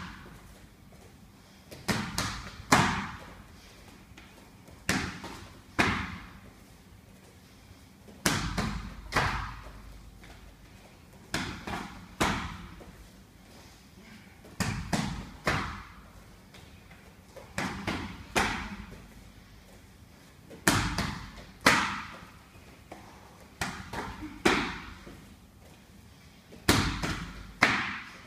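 Blows landing during technique sparring: combinations of two or three sharp thuds and slaps of punches and kicks on gloves and bodies, coming about every three seconds, each with a short fading echo.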